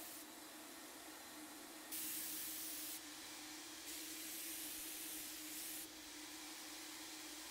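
Paint spray gun spraying, a steady hiss over a low hum, with two louder bursts of spray as the trigger is pulled: a short one about two seconds in and a longer one of about two seconds near four seconds in.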